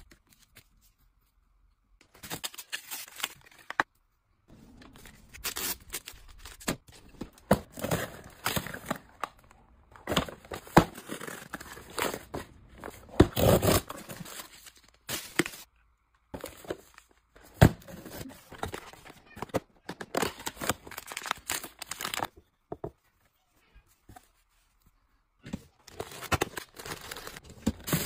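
Close-up handling of packaging: plastic wrappers crinkling and tearing, and a cardboard box being opened, in irregular bursts of rustles and sharp taps. The sounds stop dead for a few short spells of silence.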